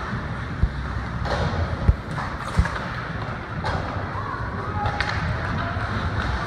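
Ice hockey game sounds in a rink: a few short, dull thuds in the first few seconds and several sharp knocks, over steady background noise.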